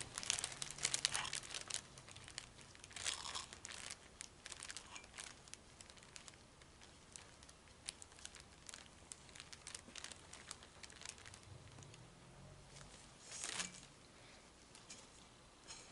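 Faint crinkling of a plastic sheet with scattered small clicks and taps as the motor casing and parts are handled, with a brief louder rustle about thirteen seconds in.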